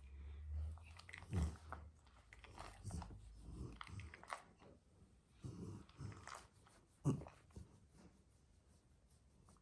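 Faint, irregular rustling and soft clicks of a hand scratching an Alaskan malamute's thick coat close to the microphone, with two sharper knocks, about a second and a half in and about seven seconds in.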